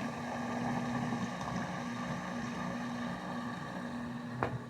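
Salvaged 120-volt AC washing-machine drain pump running steadily with a hum, pumping water out of a tub through its open drain. A short click about four seconds in.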